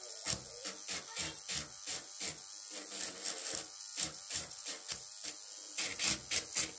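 Electric nail drill with a ceramic bit grinding down a gel nail extension, in rhythmic back-and-forth strokes about three to four a second. The strokes grow louder about six seconds in.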